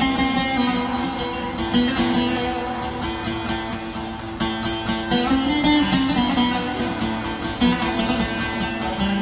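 Live instrumental music led by a plucked string instrument, with quick, continuous note onsets and no singing.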